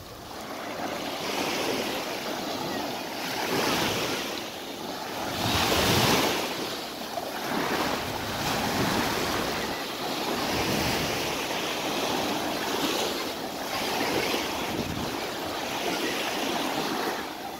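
Sea surf washing in on the beach, waves rising and falling every couple of seconds, the loudest about six seconds in.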